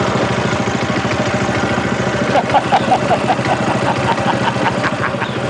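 Small lawnmower-type petrol engine of a river boat running steadily, with a fast, even beat. A quick row of short high chirps sounds over it about halfway through.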